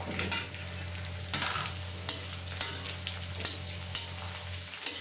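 Steel spatula stirring and scraping pointed gourd and potato pieces frying in a steel kadai, about seven scraping strokes over a steady sizzle.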